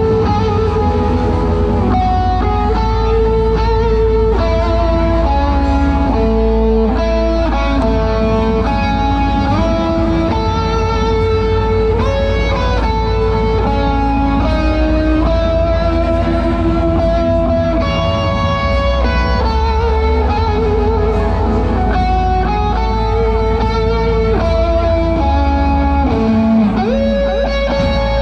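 Live band music played loud through a PA, led by electric guitar over a steady bass.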